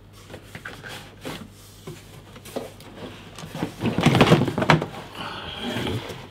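Cardboard box and packaging rustling and scraping as a welder unit is worked loose and pulled out of its box. The sound is soft at first and loudest about four seconds in, when the unit comes up out of the box.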